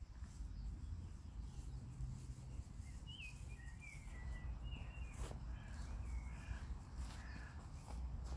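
Outdoor ambience: a steady low rumble, with a bird giving a string of short, wavering calls through the middle and a few sharp clicks.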